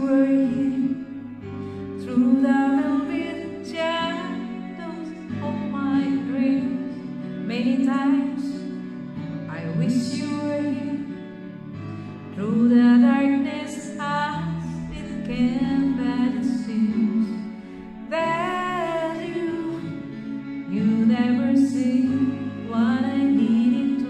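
A woman singing into a handheld microphone over recorded backing music, her melody moving in phrases of long held notes.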